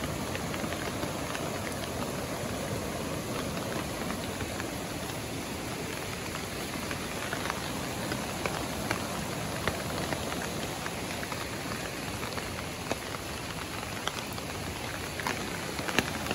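Steady hiss of water, with a few short sharp ticks, mostly in the second half.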